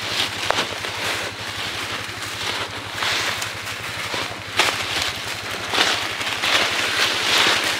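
Footsteps crunching through dry leaf litter, with briars and brush scraping and rustling against the walker and a few sharp twig snaps.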